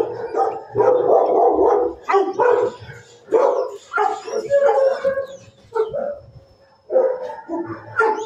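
Shelter dogs barking and howling almost without pause, easing off briefly about six seconds in and then starting up again.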